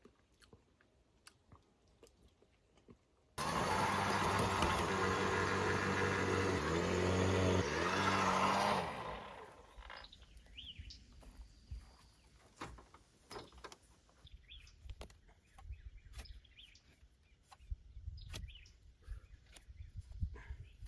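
An engine starts suddenly and runs loudly for about five seconds, its pitch stepping up near the end, then dies away. Faint bird chirps follow.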